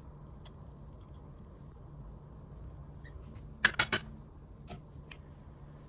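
Soft scattered taps and clicks as sliced gherkin pickles are set down by hand on pizza toppings in a frying pan, with a short cluster of sharper clicks a little before four seconds in, over a low steady hum.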